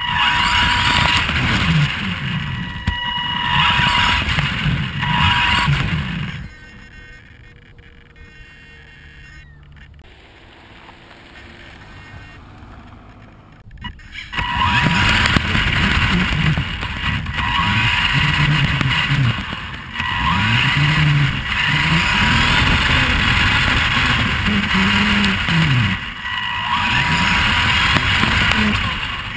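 Vaterra Twin Hammers electric RC rock racer driving on gravel, heard from its onboard camera: the motor and drivetrain whine rising and falling in pitch with the throttle, over a rough crunching of gravel under the tyres. About a third of the way in it drops much quieter for several seconds, then drives hard again.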